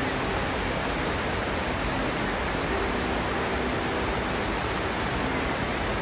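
Steady rushing of a waterfall and the rocky rapids below it, an even noise that does not change.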